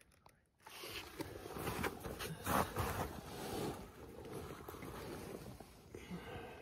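Rustling and scuffing of clothing and dry conifer needles as someone crouches and reaches under a log, starting about a second in and loudest around the middle, over a low rumble.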